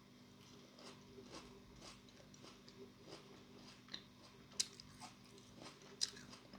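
Close-up chewing and mouth sounds of someone eating, faint soft clicks about twice a second, with two sharper clicks near the end.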